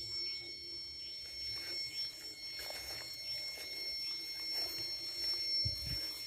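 Several steady high-pitched tones sounding at once from a solar-powered electronic rat repeller's speakers, set to audible frequencies. A couple of low thumps come near the end.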